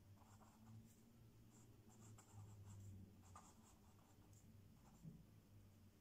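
Faint scratching of a fine-tip black pen drawing short, irregular strokes on paper, over a low steady hum.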